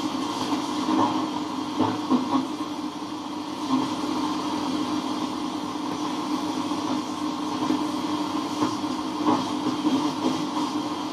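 Homemade AM radio receiver playing through its loudspeaker: steady static hiss with a low hum and a few short crackles while the receiver is being tuned.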